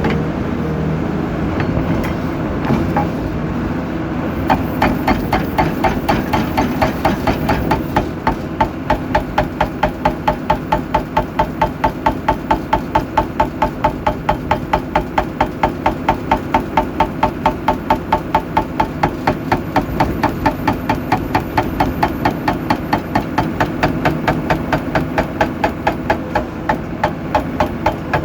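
A machine engine running, with a rapid, evenly paced metallic hammering of about three blows a second that starts about four seconds in and keeps going.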